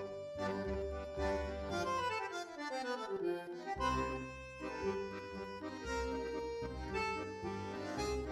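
Instrumental background music with a bass line and a reedy lead melody; about two seconds in the bass drops out and a run of notes falls in pitch, then the bass comes back.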